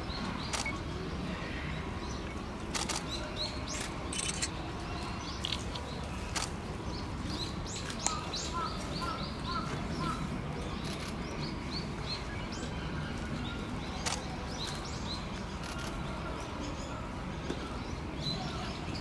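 Small birds chirping in short, repeated calls over a steady low background hum, with a few sharp clicks.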